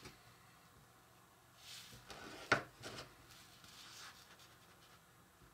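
Faint, soft scraping of a metal spatula spreading icing over a cookie on a wooden cutting board, with one sharp tap about two and a half seconds in.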